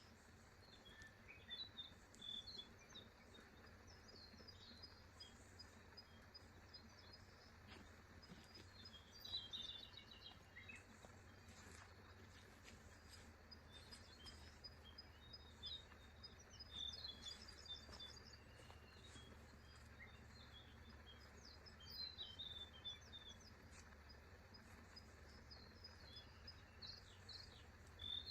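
Faint forest ambience: small birds chirping and twittering on and off, with a few louder bursts of calls, over a low steady rumble.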